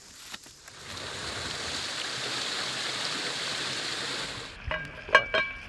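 Small waterfall spilling into a river pool: steady rushing water. Near the end it stops abruptly and a few sharp clinks follow.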